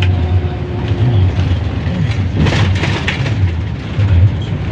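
Minibus engine and road noise heard from inside the cabin while riding: a steady low rumble, with a brief louder hiss about two and a half seconds in.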